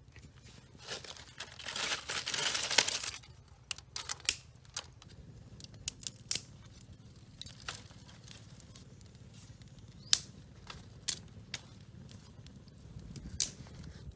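A small campfire of dry twigs and leaves. There is a rush of rustling noise for about two seconds near the start, then scattered sharp crackles and snaps as sticks are laid on and the flames catch.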